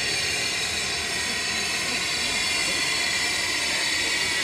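Steady hiss of steam from the Mh.4 narrow-gauge steam locomotive as it pulls slowly into the station.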